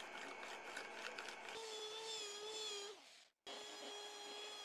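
Handheld belt sander running on an end-grain cutting board: a steady motor whine with the belt rasping on the wood, starting about one and a half seconds in after a scratchy rubbing. The sound cuts out abruptly a little after three seconds in and the sander comes back at once.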